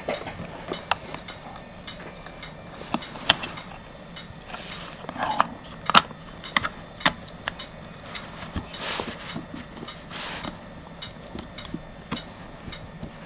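Scattered small clicks and light handling noises as fingers work the rotary control knob and switch of an electric blanket controller, with a few soft rustles.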